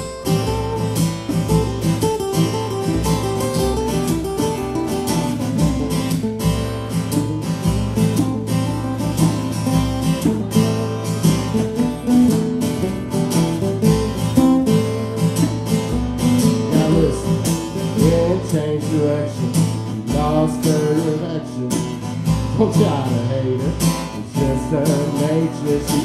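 Two acoustic guitars played together, strummed in a steady rhythm: an instrumental break in a live song.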